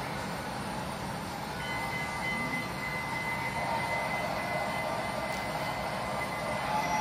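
Model train hopper cars rolling steadily along the layout track, a continuous rumble of small wheels on rail. About a second and a half in, a thin steady squeal joins in and holds.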